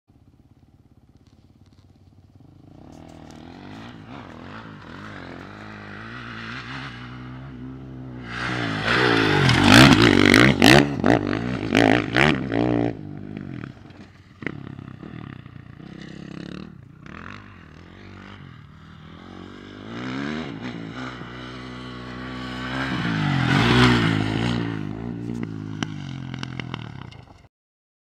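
Dirt bike engine revving as a bike rides toward and past close by, loudest about ten seconds in with sharp on-off throttle surges and a rise and fall in pitch. A second pass builds to another peak near the end, then the sound stops suddenly.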